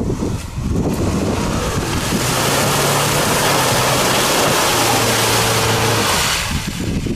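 Subaru Outback wagon driving past at close range on a muddy track, its boxer engine running with a steady note under load. A loud rushing noise of tyres working through the mud swells about a second in and dies away near the end as the car moves off.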